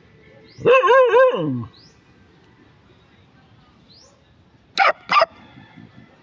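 Dog barking: a quick run of three pitched barks that trail off downward about a second in, then two short, sharp barks a little before the end.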